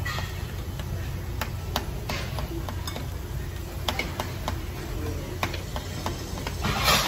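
Chopsticks and utensils clicking and tapping against dishes, a dozen or so separate clicks, over a steady low hum. There is a short rustling hiss near the end.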